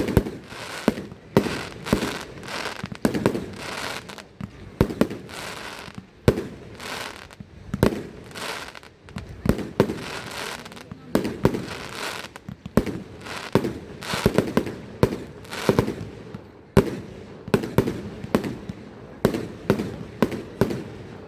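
Fireworks going off in a dense, irregular barrage: sharp bangs several times a second, each trailing off in echo.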